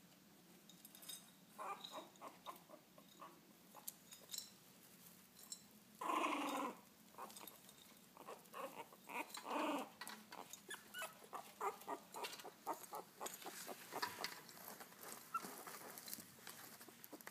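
Very young French bulldog puppies whimpering and crying, with two louder cries about six and nine and a half seconds in, among soft scuffling and light clicks.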